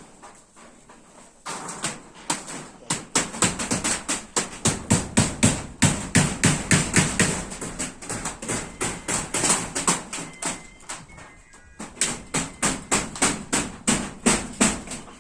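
Hammer blows driving nails, a quick run of sharp, ringing strikes about three a second, pausing briefly about ten seconds in before starting again.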